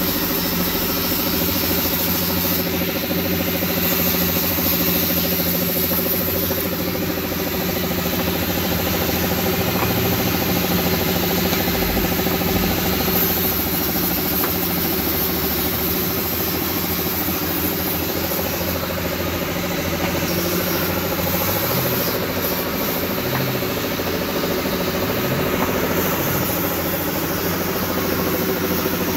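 A machine's motor running steadily, an even hum with steady tones that does not rise, fall or stop.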